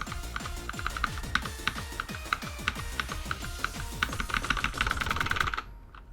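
Fast electronic rhythm-game music with a steady kick-drum beat, over rapid key taps on a mechanical keyboard fitted with rubber keycaps. Both cut off suddenly near the end.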